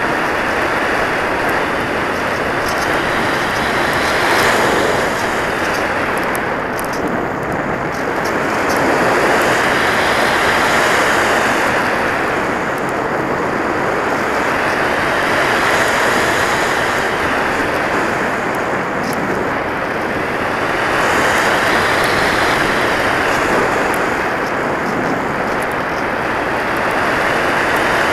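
Airflow rushing past an RC sailplane's onboard camera in flight, swelling and easing about every six seconds, with a faint whistle that rises and falls along with each swell.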